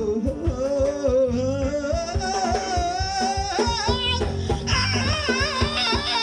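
Live band music: a voice holds long, wavering notes that climb higher over a steady drum beat.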